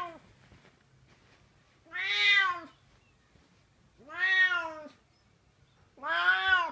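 Cat meowing: three long, drawn-out meows about two seconds apart, each rising and then falling in pitch.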